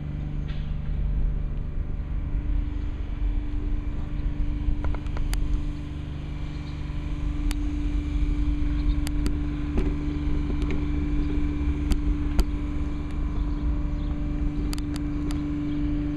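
An engine running steadily with a low, even hum, under gusty wind rumble on the microphone and a few light clicks.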